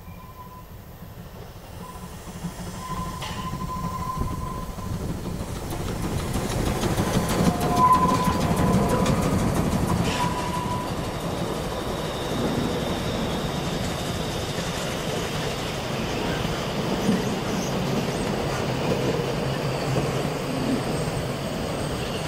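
Narrow-gauge steam train approaching and passing. It grows steadily louder over the first eight seconds as the locomotive draws near, then the coaches roll past with a steady clatter of wheels on the rails. A thin high tone sounds on and off during the first ten seconds.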